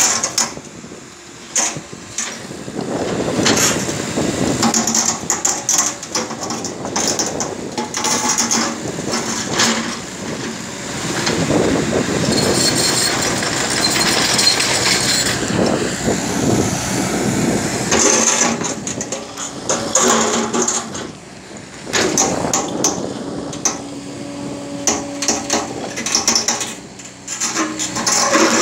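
Tracked excavator digging its steel bucket through broken rock: stones scrape and clatter against the bucket in repeated knocks, over the steady hum of the machine's engine.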